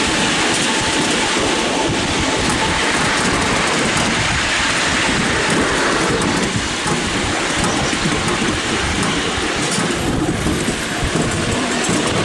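Miniature railway train running along the track, heard from a passenger carriage: a steady rumble and clatter of wheels on the rails.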